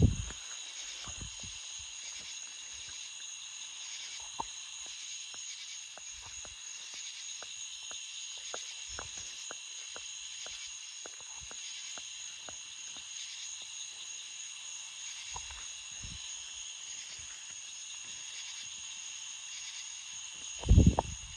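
A steady high-pitched hiss with scattered faint clicks. A short low thump comes right at the start, and a louder cluster of low thumps comes near the end.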